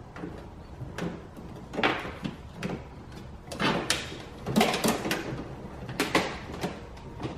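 Hands working on the car's interior trim and wiring: irregular plastic clicks, knocks and short scraping sounds, busiest through the middle.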